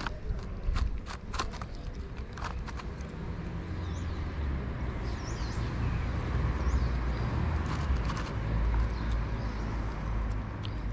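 A cat chewing raw minced meat close up, with wet clicks and smacks that are densest in the first few seconds. A low rumble builds underneath and is loudest in the middle. Faint bird chirps come a little after the middle.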